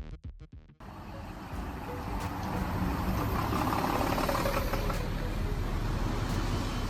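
Street traffic: motor vehicles running on a city road, a steady noisy rumble that builds over the first couple of seconds and then holds. Before it, a few beats of electronic music fade out in the first second.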